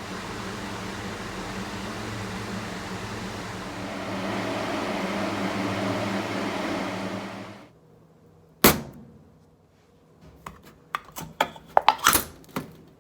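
A machine running with a steady whirring hum, a little louder after about four seconds, that stops abruptly. A sharp knock follows, then a quick run of clicks and taps.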